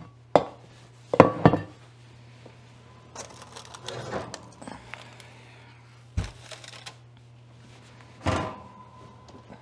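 A Dutch oven being pulled off the oven rack and set down on the counter: several sharp knocks and clatters of the heavy pot against metal and countertop, over a steady low hum.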